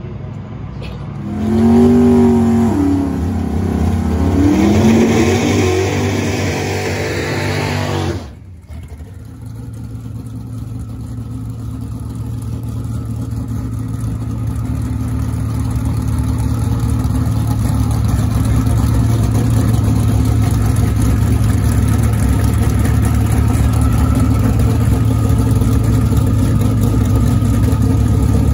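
Turbocharged LSX V8 in a Chevy Colorado drag truck revving hard in a burnout, its pitch rising and falling for several seconds. After a sudden cut about eight seconds in, the engine idles steadily and grows gradually louder.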